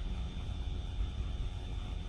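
Steady low background rumble with a faint constant high-pitched whine above it.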